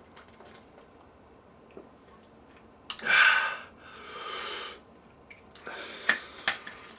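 A man catches his breath after chugging a bottled drink: a sudden loud gasp about three seconds in, then a long breathy exhale. A few light clicks of the bottle being handled follow near the end.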